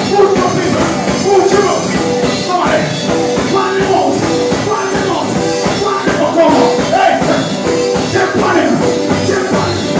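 Live gospel band playing an upbeat instrumental passage with a steady drum beat.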